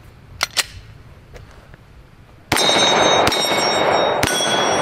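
A couple of light clicks, then a 10mm Glock 20 Gen 4 pistol fires three shots about a second apart, starting about halfway in. Each shot is followed by steel targets ringing and a long echo.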